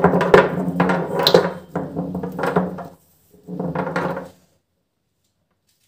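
Small plastic paint bottles clicking and knocking against each other as they are handled and picked up, over a steady low hum. The sound stops short a little before the halfway point, returns briefly, then cuts off into silence.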